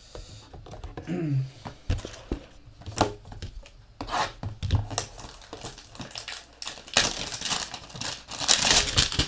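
Cardboard trading-card boxes and plastic card holders being handled: scattered light knocks and clicks, then a denser stretch of tearing and crinkling packaging near the end as a Panini Optic 2020 hanger box is picked up.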